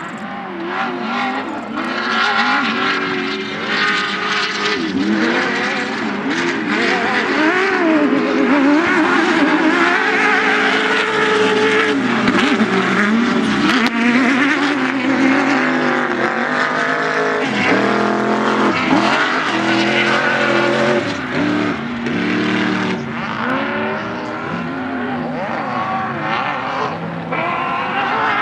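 Several off-road race vehicles' engines running together, their pitch rising and falling over and over as they accelerate and back off.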